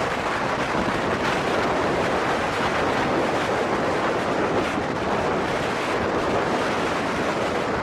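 Blizzard wind blowing steadily, with wind rumbling on the microphone.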